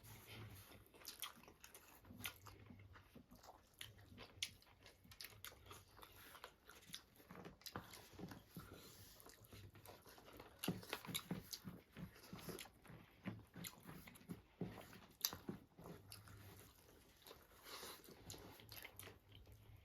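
Faint eating sounds: chewing and crunching, with many short, irregular mouth clicks and smacks.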